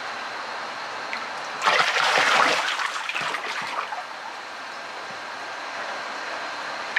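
Water splashing and sloshing in a plastic tub as a koi is held and turned by hand, loudest about two seconds in, over a steady trickle of running water.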